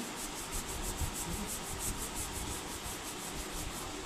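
Rhythmic high-pitched rubbing or scraping, about six strokes a second, over a steady low background hum.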